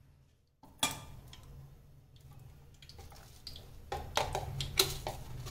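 Oil heating in an unglazed clay cooking pot on a gas burner, giving sparse ticks and small pops over a low steady hum. The pops come more often from about four seconds in.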